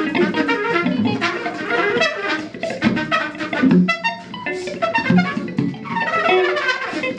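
Trumpet playing a fast, dense stream of short notes that jump around in pitch, without a break.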